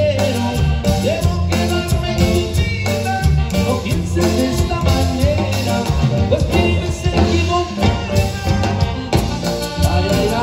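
Live Latin dance band playing through PA speakers, with keyboard, guitars and drum kit keeping a steady dance beat over a strong bass.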